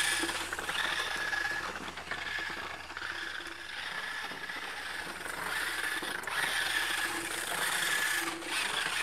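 Remote-controlled combat-robot test chassis driving and turning on rough asphalt: its electric drive motors and gearboxes whine in short spurts of about a second each as it accelerates, over a steady rattle and scrape of the wheels and frame.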